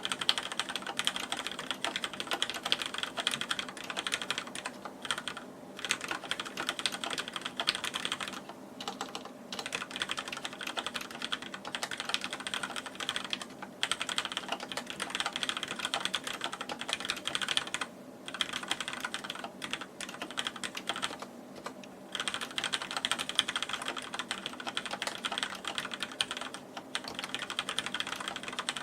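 Continuous fast typing on a Deck Francium mechanical keyboard with linear Cherry MX Black switches, a dense run of key clacks broken by a few brief pauses.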